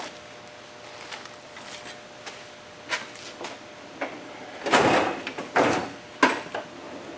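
Handling noises from work on a car: scattered clicks and knocks, then a few louder scraping, sliding sounds about halfway through.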